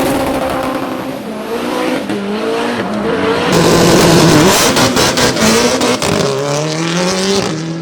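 Hillclimb race car accelerating hard at full throttle, the engine pitch climbing and dropping back several times as it shifts up through the gears. A quick run of sharp cracks comes around the middle.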